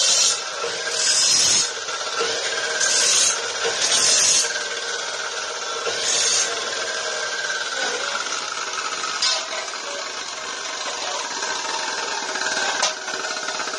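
Abrasive cut-off saw cutting metal: its motor running steadily, with about five short bursts of harsh grinding in the first six or so seconds as the wheel is pressed into the metal, then steady running with a couple of sharp knocks later on.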